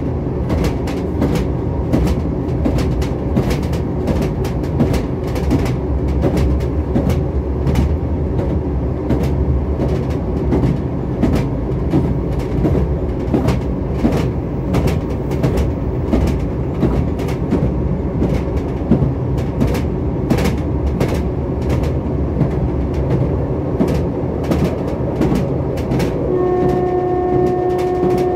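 Passenger train heard from inside the carriage while running: a steady rumble with frequent sharp clicks of the wheels over the rail joints. A steady horn note comes in near the end.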